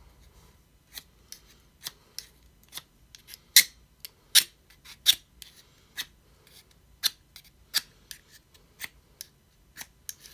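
Ferro rod struck repeatedly with the dull knife blade of a cheap multi-tool: about twenty short, sharp scraping strokes, roughly two a second, starting about a second in. The loudest strokes fall around the middle.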